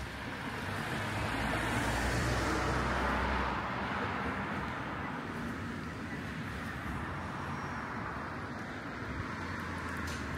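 Road traffic: a vehicle passes, its tyre and engine noise swelling and fading over the first four seconds, then a steady background of traffic.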